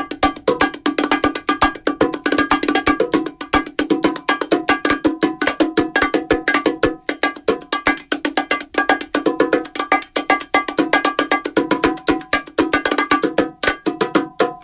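Hand-drum solo on congas and bongos: a fast, unbroken run of pitched slaps and open tones in a rhythmic pattern.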